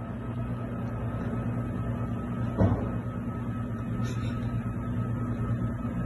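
A steady low electrical hum with a faint high whine, and one light knock about two and a half seconds in.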